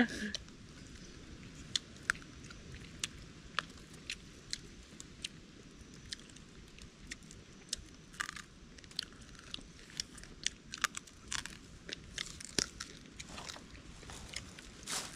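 Chewing and crunching at a meal of grilled frog, with many scattered sharp clicks and a few short louder crunches.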